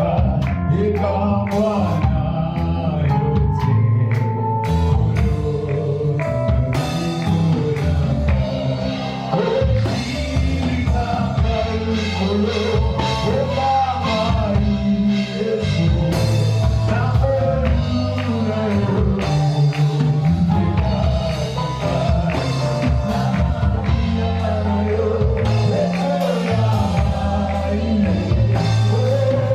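Live gospel worship music: a full band with drum kit, bass and keyboard or guitar accompanies sung vocals, filling out more fully about seven seconds in.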